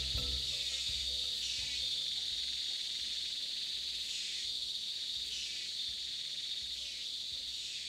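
Tropical rainforest insect chorus: a steady high-pitched buzzing that swells softly about once a second.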